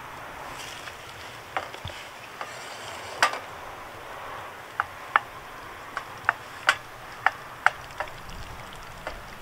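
About a dozen short, sharp clicks and knocks at uneven intervals over a faint steady hiss, the loudest around the middle.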